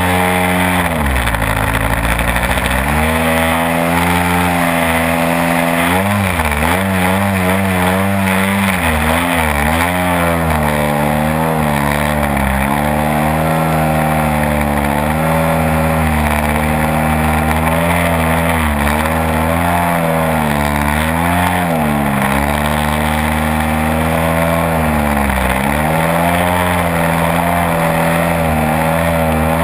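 Extra 330 model aerobatic plane's engine running, heard close up from a camera on the fuselage, steady with a rush of air, its pitch dipping and coming back up several times as the throttle is eased back and opened again through the manoeuvres.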